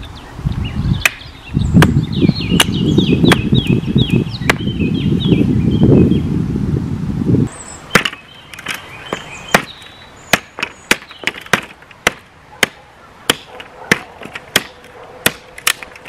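Steel hatchet chopping wood, sharp strikes at a steady rate of about two a second. During the first half a loud low rumble runs under the strikes and cuts off about seven and a half seconds in.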